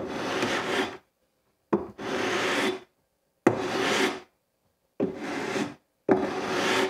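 Aluminum fret-leveling beam sanding the frets of a guitar neck: five long strokes, about one every one and a half seconds, each starting with a sharp click as the beam is set down. This is a light final leveling pass that checks the fret tops are level before the last crowning.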